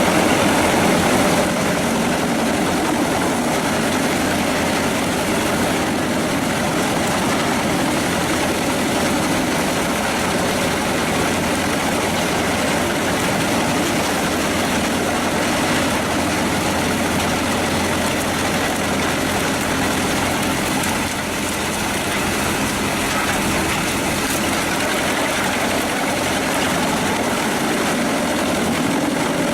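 Pezzolato PTH 900 M drum wood chipper running steadily on its Scania DC09 diesel engine, giving a loud, even machine noise. The noise dips briefly about two-thirds of the way in.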